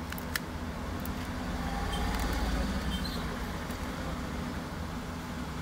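Steady low hum and rumble of background noise, with a few small sharp clicks in the first half second.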